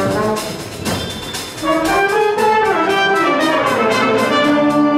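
Musical-theatre pit band playing upbeat dance music, brass leading over a steady drum beat. A phrase climbs and then falls about halfway through, and the band settles on a held chord near the end.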